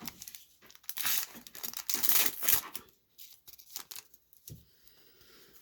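A foil Pokémon Chilling Reign booster pack being torn open: a crinkly ripping that lasts about two seconds, followed by quieter crinkling of the wrapper.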